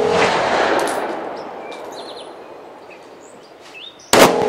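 Zastava M57 Tokarev pistol firing 7.62x25 mm rounds: the long echo of one shot fading away over about four seconds, then a second sharp shot near the end that starts to echo in the same way.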